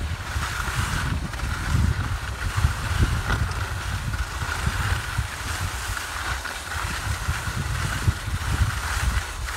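Wind buffeting the phone's microphone in a steady low rumble while riding down a ski slope, with a continuous hiss of skis or board sliding over packed snow.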